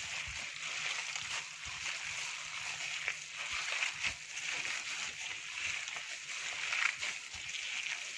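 A hand in a plastic bag squeezing and kneading a wet mixture of raw minced beef, egg and onion in a steel bowl: irregular wet squelching with plastic crinkling.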